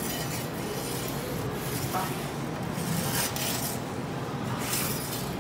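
Metal pizza peel scraping across the stone floor of a pizza oven as it is worked under a Neapolitan pizza to turn it: several short rasping scrapes, the longest about three seconds in and another near the end, over a steady kitchen background.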